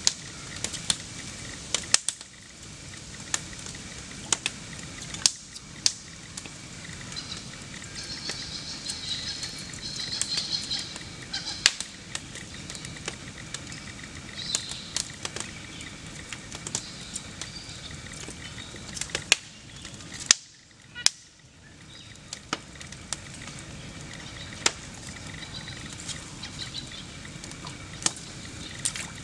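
Upright piano burning: a wood fire crackling, with sharp, irregular snaps and pops over a steady hiss. Birds call faintly for a few seconds about eight seconds in.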